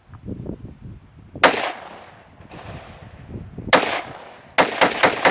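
Gunshots on an outdoor range: two single shots a couple of seconds apart, then near the end a rapid string of about five shots, roughly six a second.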